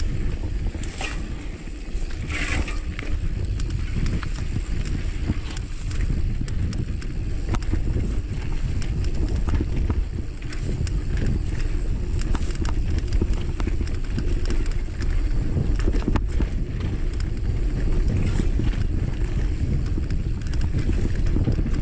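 Mountain bike rolling fast down a dry dirt trail: a steady rumble of tyres on dirt and wind on the microphone, with frequent small clicks and rattles from the bike over rough ground.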